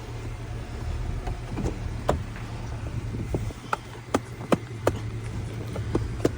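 Car engine idling with a steady low hum, with a string of short sharp clicks and knocks on top.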